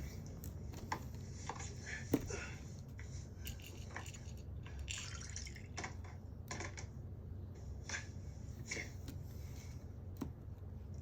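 Scattered light clicks and taps with faint liquid sounds over a steady low hum.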